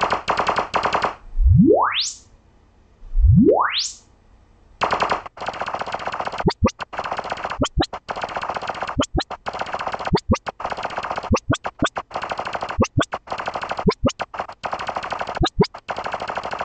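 Room-calibration test signals from SoundID Reference played through Neumann KH310 three-way studio monitors. First comes noise chopped into rapid bursts, about three or four a second. About a second in, two rising sine sweeps run from deep bass up to a high whistle, then more noise follows, broken by quick rising chirps, often in pairs, every second or so.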